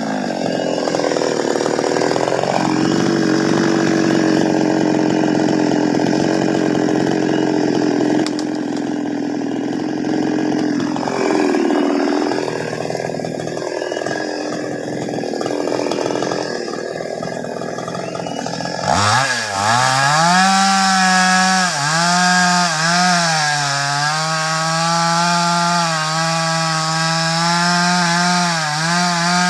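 Petrol chainsaw cutting through a baros log under load for about nineteen seconds. It then comes free of the cut and runs at high revs, its pitch wavering with the throttle.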